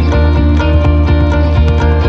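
Background music with a steady beat, guitar-like plucked strings over a heavy bass.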